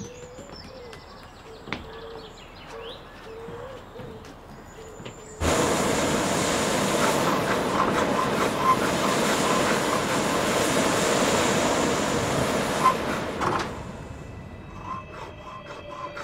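Handheld gas-cartridge blowtorch heating a copper pipe. Its flame comes on suddenly about five seconds in, burns with a steady loud hiss and a few small crackles, and stops a couple of seconds before the end.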